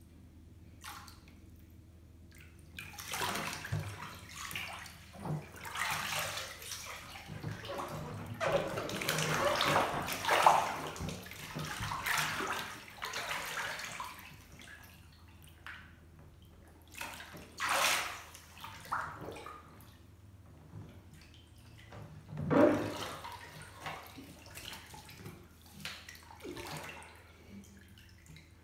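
Bathwater sloshing and splashing as a clothed person moves and rolls over in a filled bathtub. It comes in irregular bursts: a long stretch of movement starting about three seconds in, then a few shorter splashes later on.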